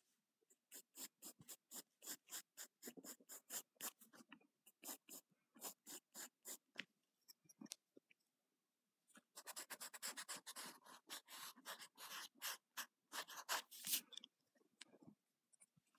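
Wooden pencil sketching on sketchbook paper: short scratchy strokes a few times a second, a pause of about a second just past the middle, then a denser run of strokes that thins out near the end.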